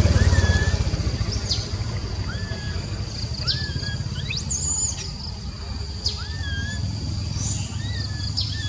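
Baby long-tailed macaque giving short repeated coo calls, about one a second, the contact call of an infant separated from its mother. A steady high whine and a low rumble run underneath.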